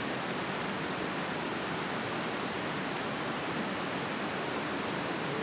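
Steady rushing of a nearby river: an even hiss that holds at one level without rising or falling.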